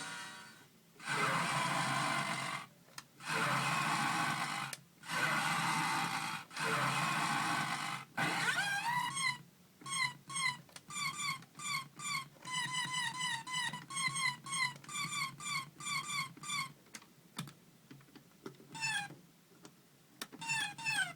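Circuit-bent toy sound effects machine making electronic noise: four long bursts of harsh static-like hiss, then a rising glide, then a fast run of short repeated chirping tones, with a few scattered clicks near the end.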